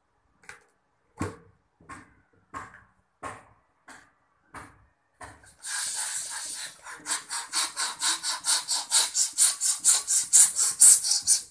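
Hand-held balloon pump blowing up a balloon. After a few separate short knocks, a long hiss of air starts about halfway in. Then come quick pump strokes, each a short hiss, about five a second, getting louder toward the end.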